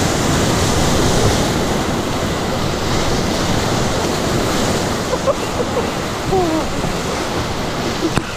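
Whitewater rapids rushing and churning loudly around a canoe, a steady wash of water noise, slightly louder in the first two seconds. A single sharp knock near the end.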